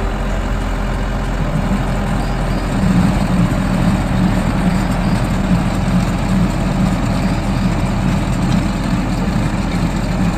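John Deere tractor's diesel engine running steadily while it works a tractor-mounted Verti-Drain deep-tine aerator across turf. The sound gets somewhat louder about three seconds in.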